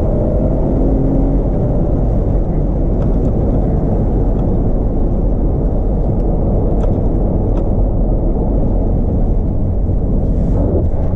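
Cabin noise of a Dodge Grand Caravan minivan driving over gravel: a steady rumble of engine and tyres, with a few faint ticks.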